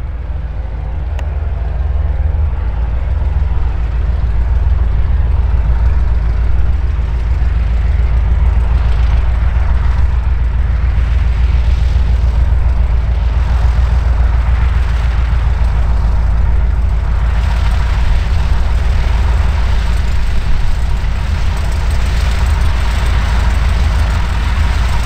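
Van's RV-7 light aircraft's piston engine and propeller running at taxi power, a steady low drone that grows louder over the first few seconds as the plane comes close, then holds.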